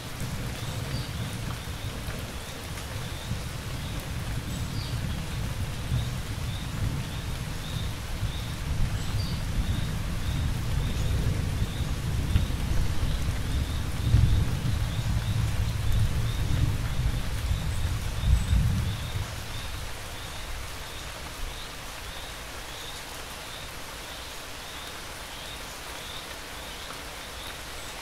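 Steady rain falling, with a long low roll of thunder that builds, swells a few times and dies away about two-thirds of the way in. Crickets chirp in a steady, regular rhythm over the rain.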